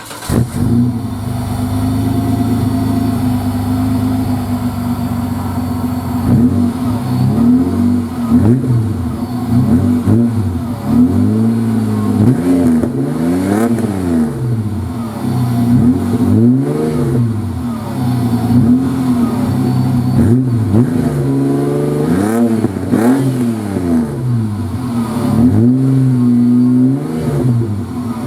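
Holden VN Commodore's 3.8-litre V6 through a 2½-inch Redback sports exhaust, firing up and idling steadily, then revved again and again in short blips from about six seconds in.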